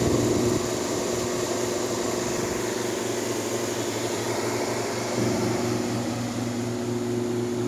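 1958 Carrier 4,500 BTU window air conditioner running steadily under full load: the blower's airflow noise over the steady hum of its Tecumseh pancake compressor.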